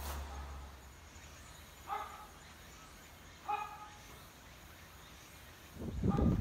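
A dog barks twice, faintly, about a second and a half apart. Near the end, heavy rhythmic thudding starts, like running footsteps.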